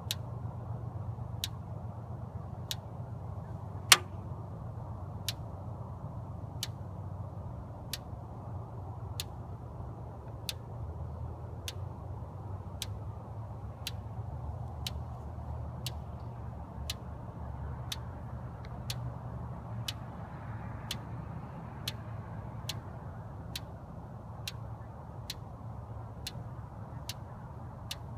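Water freezing fast: sharp ticks at an even pace, about one every second and a half, over a steady low rumble, with one much louder crack that rings briefly about four seconds in.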